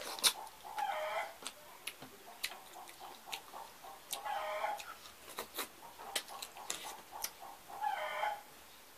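Eating by hand: wet mouth smacks and clicks from chewing and fingers at the plate. In the background an animal calls three times, each call about half a second long and a few seconds apart.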